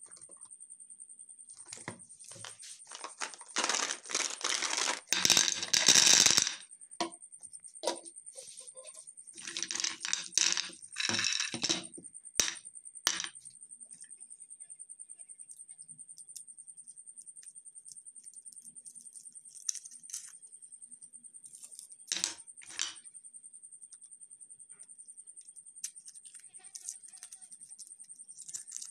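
Foil-wrapped chocolate balls clattering against a plastic jar and a plate in two loud bursts of rattling clicks. Then come scattered single clicks and foil crinkles as the balls are handled and unwrapped.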